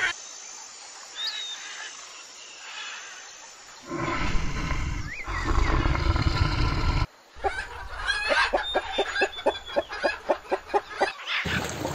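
A cheetah growls low and loud over its kill for about three seconds, the loudest sound here. After it, a flock of chickens clucks in a quick run of about five clucks a second. A few faint bird chirps come before the growl.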